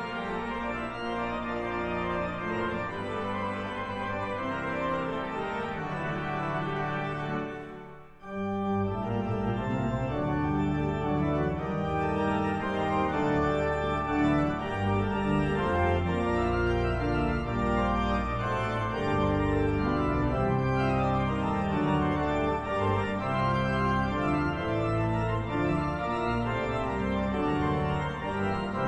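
The concert pipe organ 'Lucy', a C.B. Fisk instrument, plays a piece in several voices with sustained notes. About eight seconds in the sound breaks off briefly, then comes back fuller and louder.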